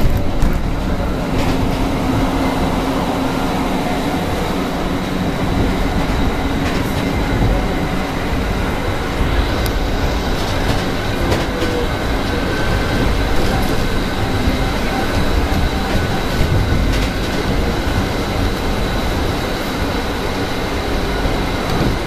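Mexico City Metro train heard from inside the car while running at speed: a steady rumble of rolling noise with a thin high whine held throughout and occasional sharp clicks over the track.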